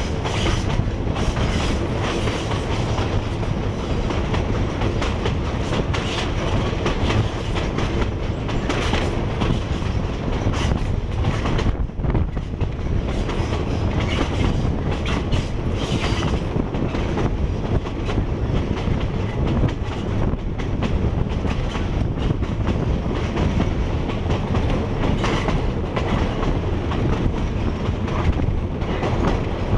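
Ban Laem–Mae Klong line train running, its wheels clattering over old, poorly maintained track, heard from an open window of the moving carriage.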